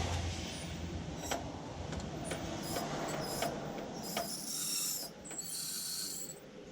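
Hand tools working on a car: scattered sharp metallic clicks and clinks, with a stretch of scraping, rattling noise in the second half.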